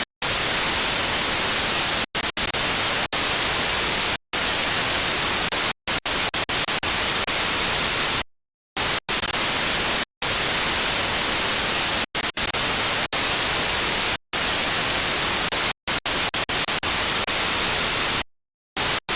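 Loud static hiss, strongest in the high end, cutting out abruptly again and again, with short gaps and a few longer ones of about half a second, like a broken signal.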